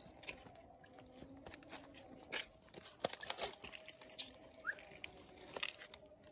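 Komodo dragon feeding: faint, irregular crunching and tearing clicks as its jaws work on prey, with a few louder snaps around the middle. One short rising chirp comes about two-thirds of the way in.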